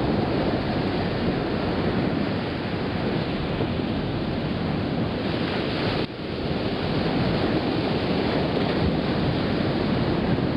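Ocean surf washing onto a sandy beach, a steady rushing noise, with wind buffeting the microphone. The sound drops out sharply for a moment about six seconds in.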